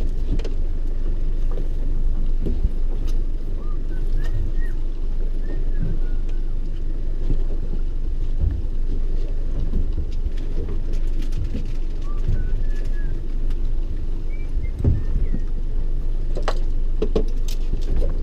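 Steady low rumble of wind and water on a small fishing boat at sea, with a few faint short chirps about four and twelve seconds in, and a run of sharp clicks near the end.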